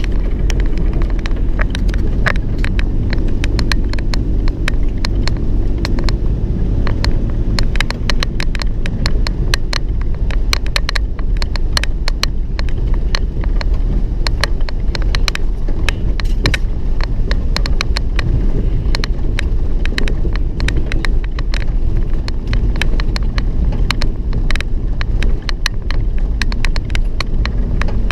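Vehicle ride noise: a steady low engine and road rumble, with rapid irregular clicks and creaks from a squeaking door rattling as the vehicle moves.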